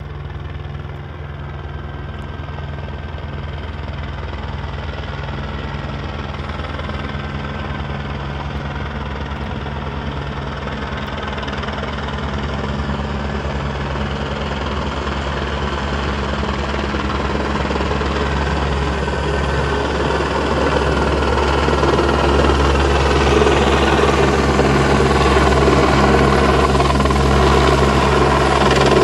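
Helicopter flying in with a load slung beneath it on a long line, its steady rotor and engine sound growing gradually louder as it comes overhead.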